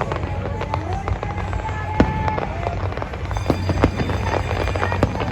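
Fireworks going off in a rapid, irregular series of bangs and crackles over a steady low rumble, with one sharper bang about two seconds in. Music plays underneath.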